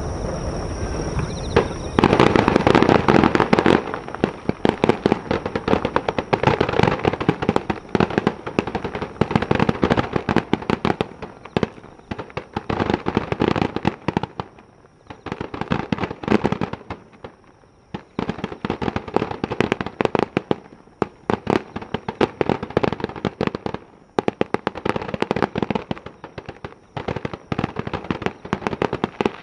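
Fireworks display: heavy booms from shell bursts about two seconds in, then fast, dense crackling and popping from a barrage of low bursts, with a few brief lulls.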